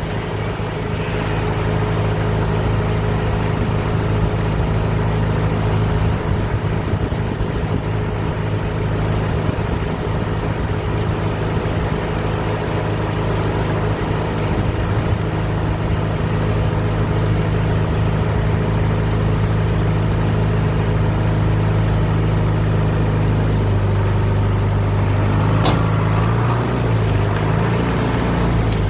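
An engine running at a steady speed, its pitch shifting a few times near the end, with a sharp click near the end.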